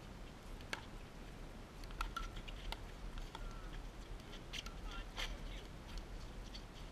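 Pickleball paddles striking the plastic ball in a rally: a series of sharp hits at irregular intervals, over a low rumble.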